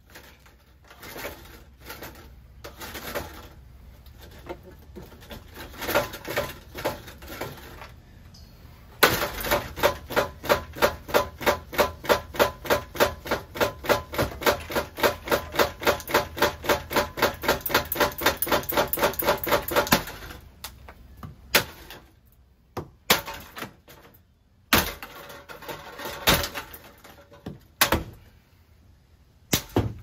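Damaged Harbor Breeze low-profile ceiling fan spinning with a rapid, regular clacking, about four knocks a second, which starts about nine seconds in and stops suddenly some eleven seconds later. Irregular clicks come before it and a few single loud knocks after.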